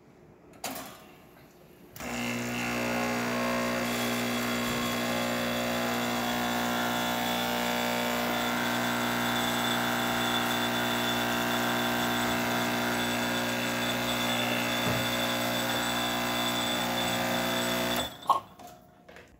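Quick Mill Alexia EVO espresso machine's vibratory pump running steadily with a buzzing hum while pulling a shot through the E61 group, the puck ground too fine for this machine. It starts about two seconds in and cuts off near the end with a short sharp sound as the shot is stopped.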